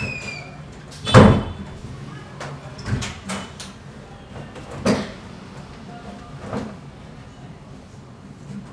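Irregular knocks and thumps, the loudest about a second in, from performers' bodies and feet moving on a narrow staircase.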